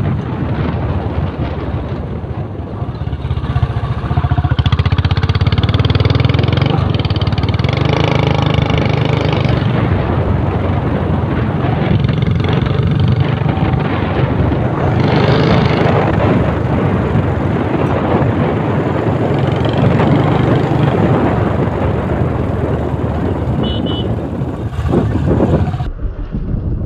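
Royal Enfield Bullet's single-cylinder engine running steadily while riding, growing louder a few seconds in as the bike picks up speed.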